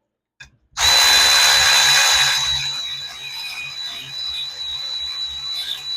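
Handheld power drill running steadily with a high whine. It starts about a second in, is loudest for the first second or so, then runs a little quieter.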